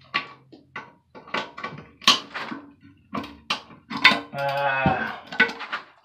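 Irregular metal clicks and clanks of vice grips being worked on corroded toilet tank bolts, with one brief squeak about four and a half seconds in.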